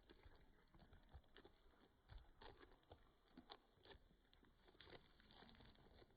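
Chickens pecking and scratching: faint, irregular taps and short scratchy rustles, with no clucking.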